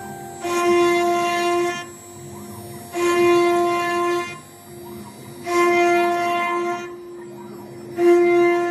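ART 1325T CNC router engraving a wooden door: a steady whine that never changes pitch grows loud and drops back in a regular cycle about every two and a half seconds.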